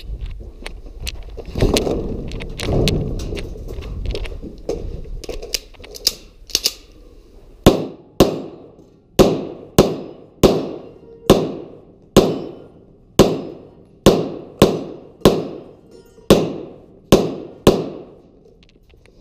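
A pistol fired in a rapid string of about twenty shots, roughly two a second, each shot ringing off the walls of a metal shed. Before the shooting starts there are several seconds of rumbling rattle and scattered clicks.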